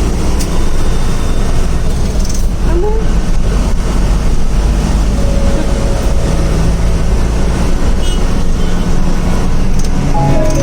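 Steady low rumble of a moving bus's engine and road noise, heard from on board.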